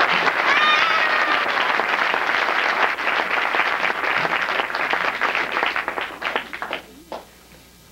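Audience applause, many people clapping, dying away near the end, with a brief falling call over it about a second in.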